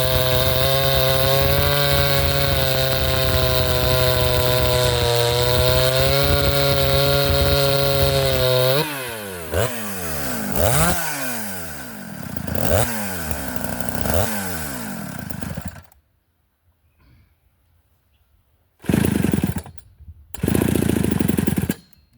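Two-stroke chainsaw running at full throttle, fitted with an Oregon round-filed chain. About 9 seconds in, the throttle is let off and the saw revs up and down four times before stopping. Two short, loud bursts of noise follow near the end.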